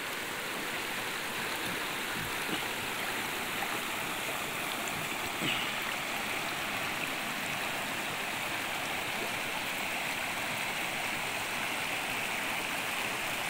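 Shallow stream flowing over rocks and pebbles: a steady, even water noise with no pauses.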